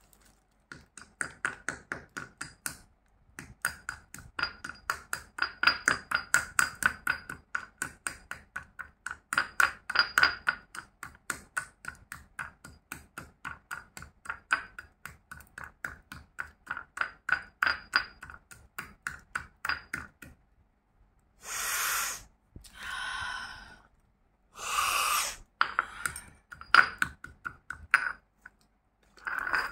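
A stone pestle pounding naphthalene mothballs in a stone mortar: quick, steady knocks, several a second, each with a short ringing ping from the mortar. About two-thirds of the way through the pounding stops and gives way to a few longer scraping grinds of the pestle over the crushed pieces, with a few knocks between.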